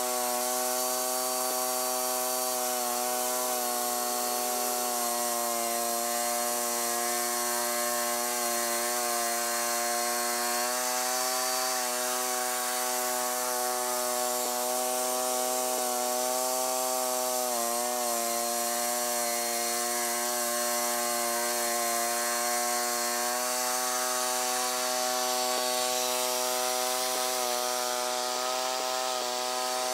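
Allis-Chalmers 410 garden tractor engine running steadily while driving its rear rototiller, its pitch sagging briefly a few times.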